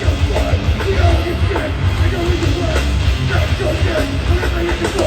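Hardcore punk band playing live at full volume: loud distorted guitars, heavy bass and drums running without a break.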